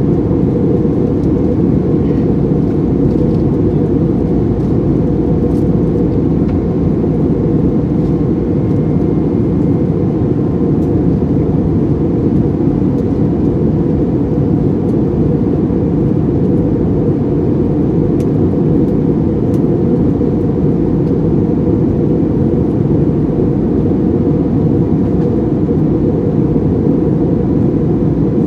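Steady in-flight cabin noise of an Airbus A321neo: an even, low rush of engine and airflow heard from a window seat, with faint steady tones above it in the first half.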